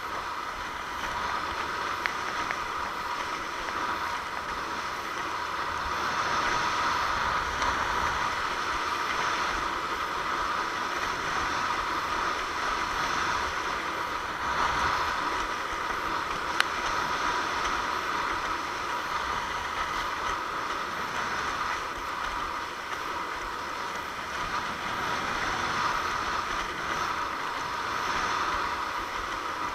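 Steady rush of water along a windsurf longboard's hull while sailing, swelling and easing a little in level, with one sharp click a little over halfway through.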